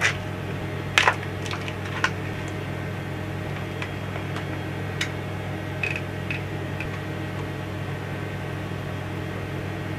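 Steady hum of the space station's cabin ventilation fans, with sharp clicks and crinkles of a plastic scrambled-egg food packet being handled. The handling noises are loudest near the start and about a second in, with a few fainter ones later.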